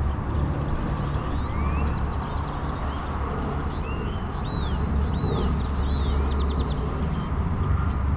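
Birds calling over a steady low rumble, with repeated arched whistles and quick rising chirps that come thickest in the middle of the clip.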